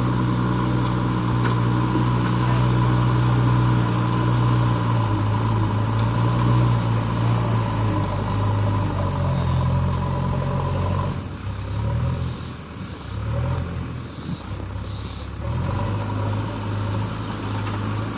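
Diesel engine of a JCB backhoe loader running steadily with a steady high whine, being tested under load after a repair. About eleven seconds in, the whine stops and the engine note drops and wavers for a few seconds, then steadies again.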